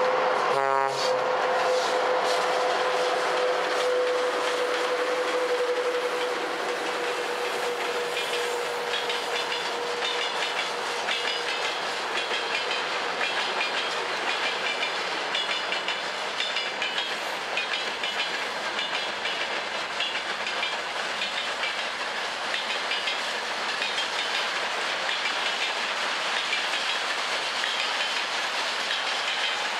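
Freight train passing: the VL80k electric locomotive and ChME3 diesel shunter go by with a steady hum that fades over the first ten seconds, with a brief low tone about a second in. Tank wagons and covered hopper wagons then roll past with repeated clicking of wheels over the rail joints.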